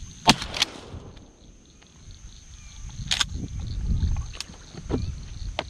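Water sloshing and splashing in shallow marsh water, with several sharp knocks scattered through it and a steady high-pitched tone in the background.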